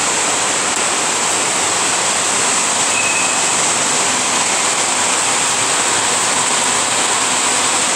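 A steady, loud rushing hiss that does not change.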